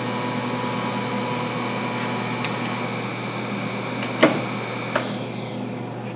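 Running wash station of a Branson ultrasonic aqueous cleaning system: a steady hiss with several steady hum tones from its recirculation pump and ultrasonics. The high hiss cuts off suddenly about three seconds in, leaving a fainter hum, and a couple of sharp knocks follow.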